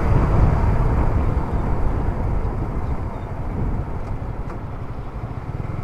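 Motorcycle riding noise: wind rushing over the rider's microphone with the engine underneath, easing off a little toward the end.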